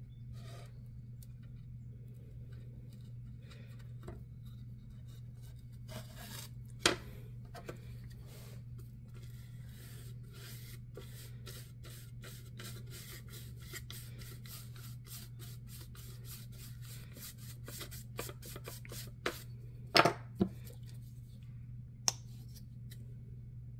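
Bristle paintbrush dragged across a wooden plaque, laying on white paint in a long run of quick, scratchy back-and-forth strokes through the middle. A few sharp knocks on the table come around it, and a steady low hum runs underneath.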